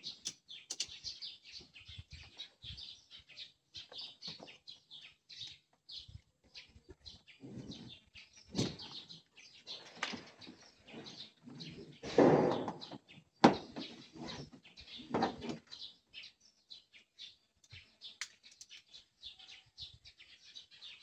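Birds chirping steadily in the background, with intermittent scraping and knocks as boxes and a tie-down strap are handled on the plastic bed liner of a pickup truck; a sharp knock about 13 seconds in is the loudest.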